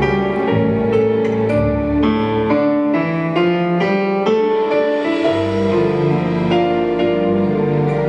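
Gentle instrumental backing music led by piano, a melody of struck notes over held chords.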